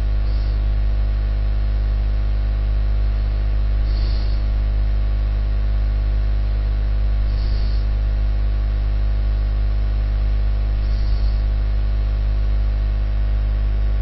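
Steady electrical mains hum with a buzzing stack of overtones, carried on the recording's audio line. Faint, short, soft blips sound high up about every three and a half seconds.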